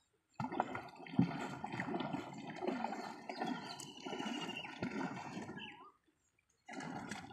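Water splashing and gurgling around a small country boat's hull as it moves through the water, with a few knocks. The sound drops out for a moment near the end.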